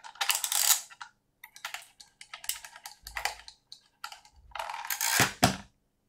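A fibre-optic connector cleaner being worked on a connector end face: a run of short rustling, clicking bursts with a couple of low handling bumps, the loudest about five seconds in.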